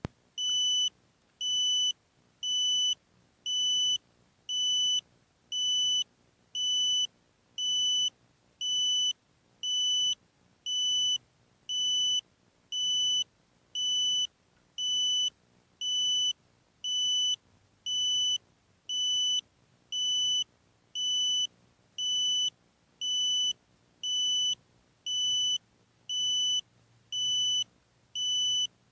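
An electronic beeper sounding a steady high-pitched beep about once a second, each beep lasting about half a second, in an unchanging even rhythm.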